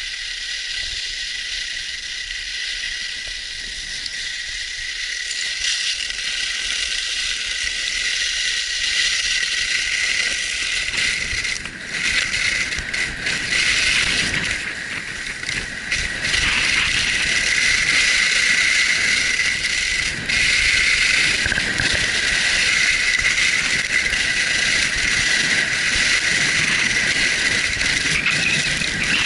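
Skis scraping and hissing over packed snow on a fast downhill run, getting louder from about ten seconds in as the speed builds toward 70 km/h, with wind rumbling on the microphone.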